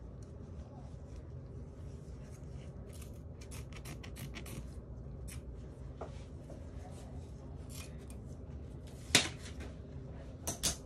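Scissors snipping through a cast's cotton padding, mixed with the rustle of the padding being pulled apart; the snips come thickest in the first half. A sharp click about nine seconds in, the loudest sound, and two more just before the end.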